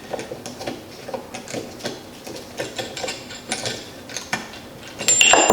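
Steel parts and tools clicking and tapping as they are worked by hand, while a spring is pressed down and a pin worked into place. About five seconds in comes one loud metal clang that rings on briefly.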